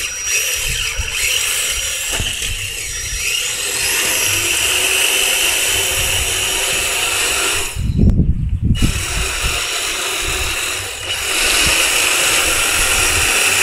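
Electric motor and gearbox of a 6x6 RC rock crawler whining steadily as it drives. A brief low rumble comes about eight seconds in.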